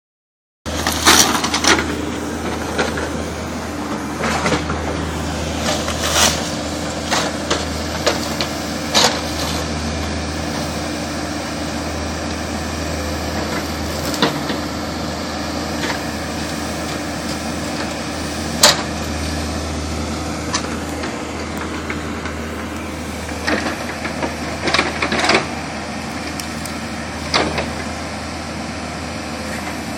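Backhoe's diesel engine running steadily under load while pulling cedar tree stumps. Scattered sharp knocks and cracks, a dozen or so, come from the work.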